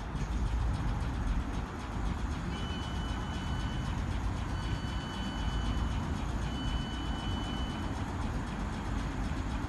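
South Western Railway Class 455 electric train standing at the platform with a steady low rumble. Over it come three long, high, steady electronic beeps in a row, starting about two and a half seconds in.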